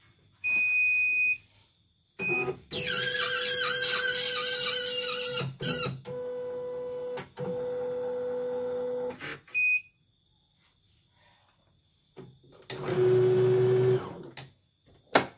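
CNY computerized embroidery machine powering up: a high electronic beep, then its motors running in several bursts of a few seconds each with a steady whining tone, and a few more short beeps between them.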